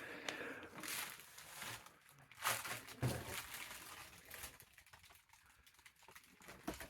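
Irregular rustling and crinkling, with a louder crunch about two and a half seconds in and a knock at about three seconds.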